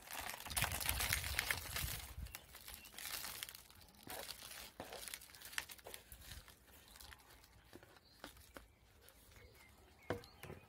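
Gritty potting mix of vermiculite, sand and ericaceous compost pouring and sliding from a plastic saucer into a small plastic pot. The hiss is loudest in the first couple of seconds, then trickles with scattered ticks of grains on plastic. A single knock comes near the end.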